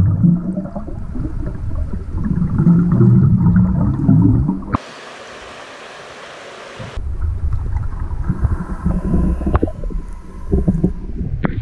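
Muffled underwater rumbling and bubbling from a diver's exhaled air, heard through an underwater camera. About five seconds in it breaks for two seconds of steady open-air hiss, then the underwater bubbling resumes with a couple of sharp clicks near the end.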